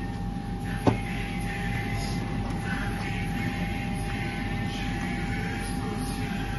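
A steady machine hum with a faint constant whine, and one sharp click about a second in.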